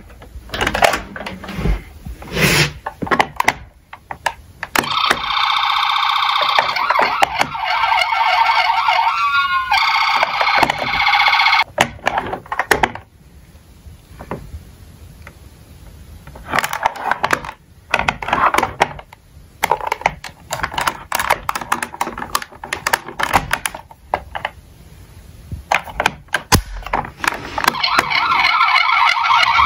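Toy emergency vehicles' electronic sirens going off in turns, each a few seconds long, with one pitch glide partway through. Clicks and knocks come between them.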